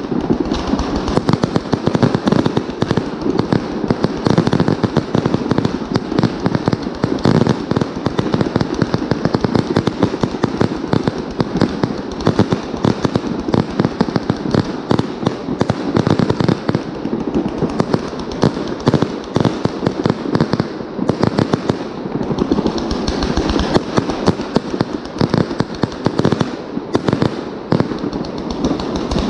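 Aerial firework shells bursting overhead in quick succession: a dense, unbroken run of bangs, many overlapping.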